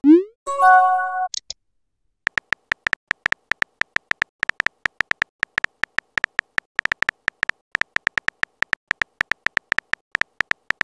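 Messaging-app sound effects: a quick rising swoosh as a message is sent, then a short chime of several tones. After a brief gap comes a fast, even run of keyboard tap clicks, about five or six a second, as the next message is typed.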